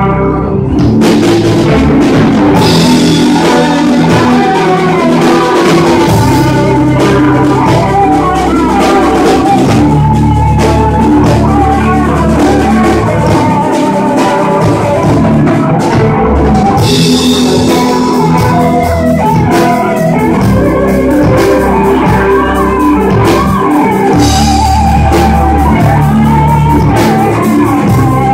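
Live rock band playing: electric guitars with a melodic lead line over a drum kit, loud and continuous.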